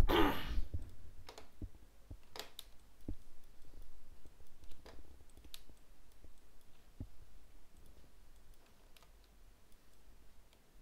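Scattered single clicks of a computer mouse and keyboard, about one every second or two, after a short burst of noise at the very start.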